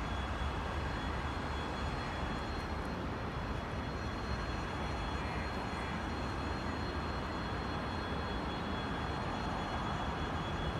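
Steady outdoor background noise: an even low rumble with a faint steady high tone above it, and no train passing.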